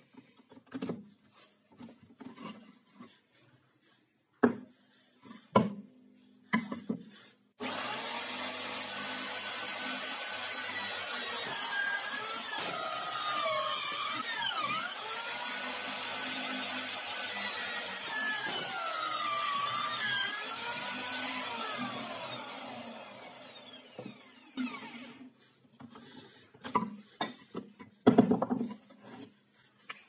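Drill press with a hole saw, switched on about a quarter of the way in and cutting discs out of plywood for about fifteen seconds, its pitch dipping and rising as the saw bites, then spinning down. Before it, wooden pieces knock as they are handled; near the end, the cut plywood discs clack together in the hands.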